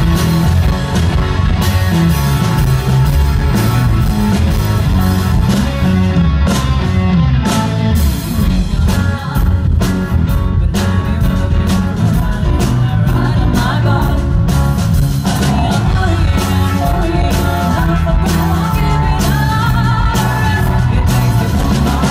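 Live rock band playing loudly through a PA, with electric guitars, bass and drums, and a voice singing over them in the middle and later part.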